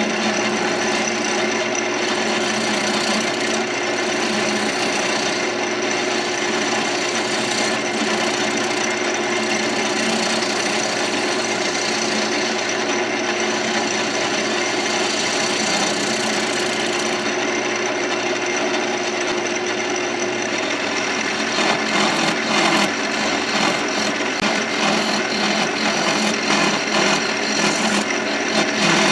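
Wood lathe running with a steady hum while a hollowing tool scrapes and cuts into a spinning mulberry blank. About two-thirds of the way through, the hum fades and the cutting turns choppier and more uneven.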